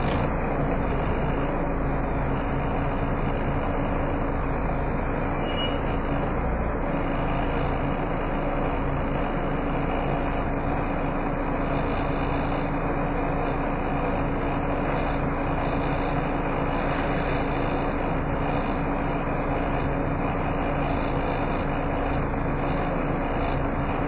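Volvo B7TL double-decker bus idling at a standstill, heard from inside the saloon. A steady engine rumble runs under the continuous hoover-like whine of its cooling fan.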